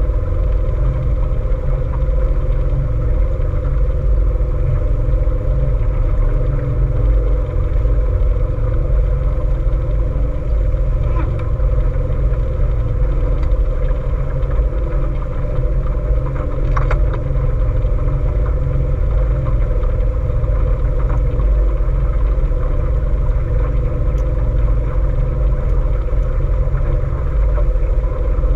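A small boat's motor running steadily at an even speed, a deep, unchanging rumble with a steady hum over it.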